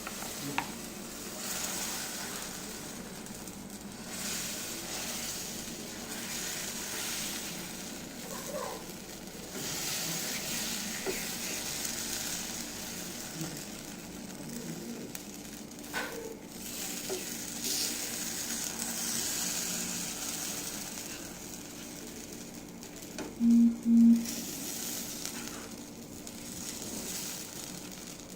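Moong dal chilla batter sizzling on a hot tawa with an even hiss that swells and fades, and a few light utensil clicks. Two short loud low tones come a little past three quarters through.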